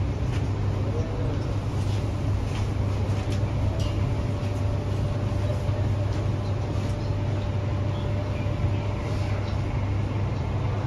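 MTR Tung Chung line K-Train electric multiple unit (Hyundai Rotem) running, heard inside the carriage: a steady low rumble from wheels and running gear, with a faint steady whine through the middle few seconds.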